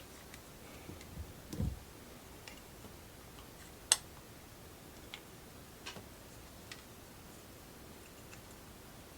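Scattered small clicks and taps of tools and parts being handled at a soldering bench, with a soft thump about one and a half seconds in and a sharp click near four seconds.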